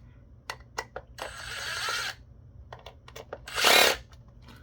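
Power drill used as a screwdriver, backing out small screws from a plastic device housing: two short runs, the second louder with a rising whine, with small clicks of the bit and screws between them.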